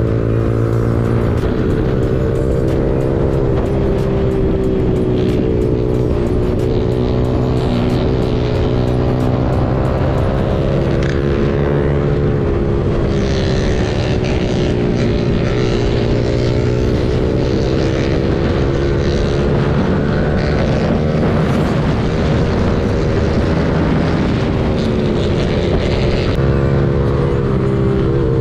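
Yamaha R15 V3's 155 cc single-cylinder engine running at high revs at highway speed, its pitch rising and falling gently as the throttle eases and opens, over steady wind rush.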